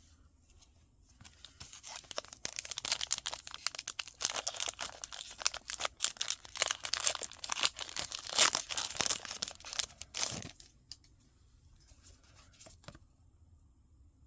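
Foil Pokémon booster pack wrapper being torn open and crinkled: a dense run of tearing and crackling that starts about a second and a half in and stops about ten seconds in.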